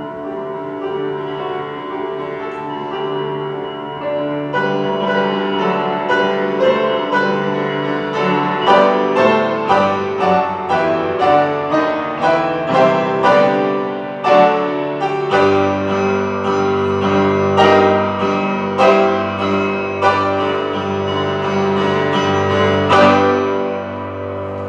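Grand piano playing the closing bars of a Christmas medley. It starts with held chords, moves into chords struck about twice a second over a sustained bass, and ends on a last loud chord shortly before the end.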